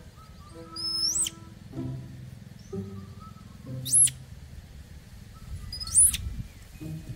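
Three short, high-pitched chirping squeaks about two seconds apart, each sweeping quickly up and then down, over soft background music with held notes.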